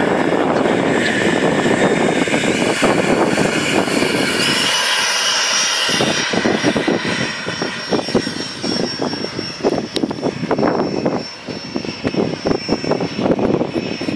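Radio-controlled model airplane in flight, its motor a steady whine that steps up in pitch about four seconds in, with rough, irregular buffeting noise in the second half.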